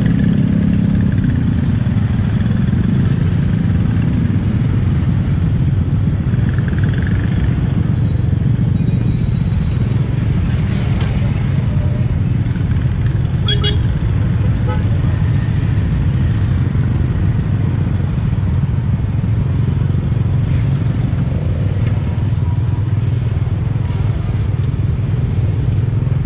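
Motorbike engines and street traffic close around a small scooter, a steady low rumble that does not let up.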